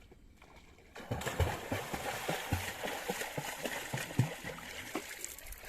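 Water splashing as children swim, with a quick run of dull slaps on the water; it starts abruptly about a second in.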